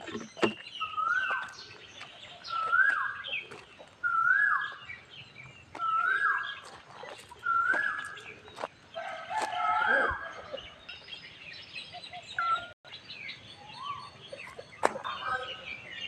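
A bird calling over and over: a rising note that holds briefly and then drops, repeated about every second and a half, six times, then a few shorter, varied calls. Scattered sharp clicks sound among the calls.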